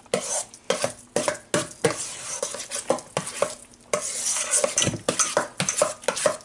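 A utensil stirring a thick, wet ricotta, egg and parsley filling in a stainless steel mixing bowl, with irregular scrapes and knocks against the metal, a few each second and a longer scrape about two-thirds of the way through.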